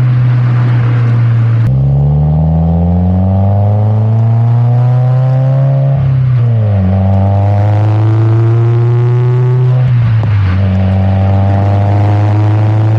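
2017 Subaru WRX's turbocharged flat-four running through an Invidia R400 exhaust under acceleration. The engine note climbs through the revs, drops sharply at upshifts about six and ten seconds in, then climbs again after each shift.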